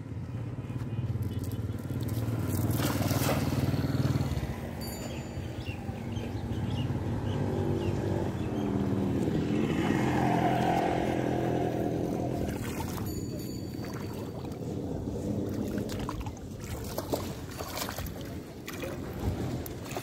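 A motor engine running steadily, louder twice, first at about two to four seconds and again about halfway through, when its pitch bends up and down.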